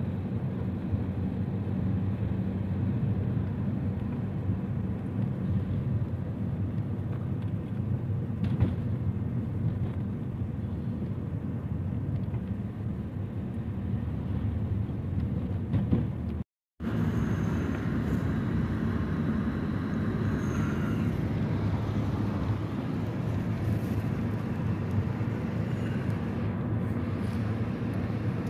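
Steady car engine and road noise heard from inside a moving taxi's cabin, broken once by a brief gap partway through.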